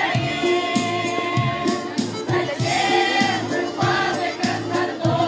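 A choir singing a song over instrumental accompaniment with a steady beat, voices holding long, wavering notes.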